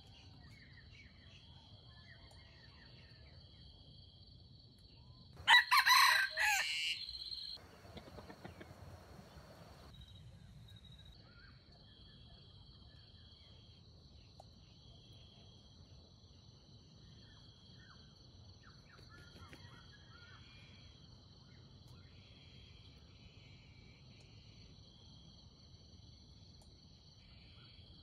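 Red junglefowl rooster crowing once, about five seconds in, a short loud crow that fades into a fainter tail. Faint steady insect buzzing carries on underneath throughout.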